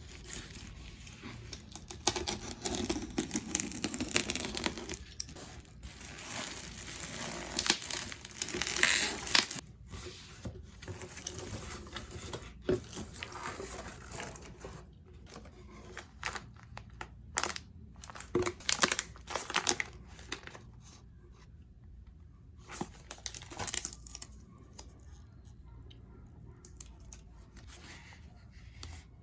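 Packaging being handled and torn open: irregular crinkling, rustling and tearing. It is busiest in the first half and grows sparser and quieter toward the end.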